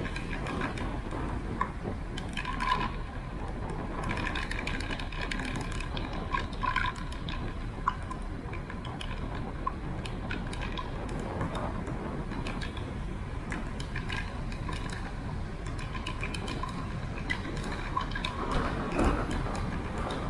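Bicycle being ridden, with a steady low rumble of wind and road noise and scattered mechanical ticking and rattling.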